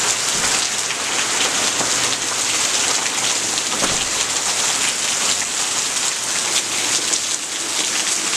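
Steady rain falling: an even hiss with scattered louder drops.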